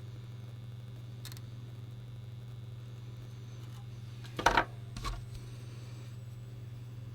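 Two short mechanical clacks, the first the louder, about four and a half and five seconds in, over a steady low hum: a spring-loaded desoldering pump being handled while the switch's solder posts are desoldered.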